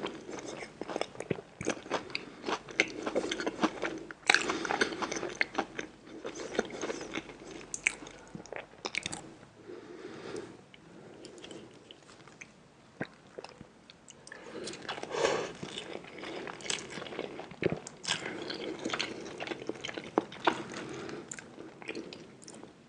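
Close-miked eating: a person biting into and chewing food, with many sharp crunches. The crunching thins out for a few seconds midway, then picks up again.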